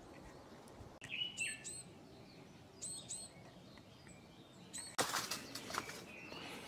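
Wild birds calling in three short groups of sharp, high notes over a faint outdoor background. About five seconds in, a louder rustling noise cuts in with repeated crunches.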